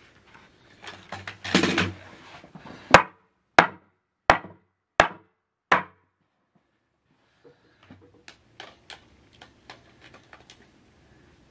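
A U.S. Optics SVS 1-6X rifle scope in its mount, smacked hard five times against a hard surface, the strikes evenly spaced about two-thirds of a second apart with a short ring after each. Before the strikes there is a rattle of the mount being taken off the rifle, and after them a run of light clicks as it is fitted back onto the rail.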